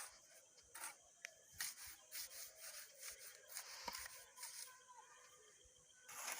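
Faint, irregular scraping and rubbing with an occasional knock, from concrete blocks being molded by hand: sand-cement mix worked and packed into a manual block mold.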